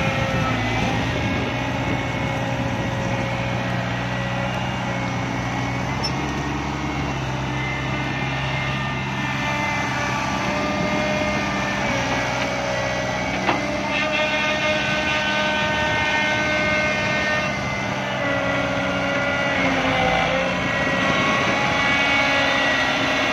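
S160 excavator's diesel engine running under working load while it digs mud, its several steady tones shifting in pitch as the machine works. One sharp knock comes about halfway through.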